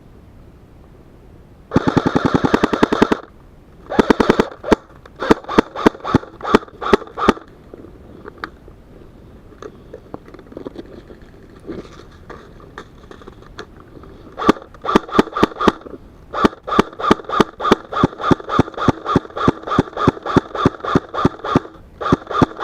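Airsoft guns firing: a rapid full-auto burst about two seconds in, then strings of single shots, and from about halfway through long runs of quick shots at roughly four or five a second.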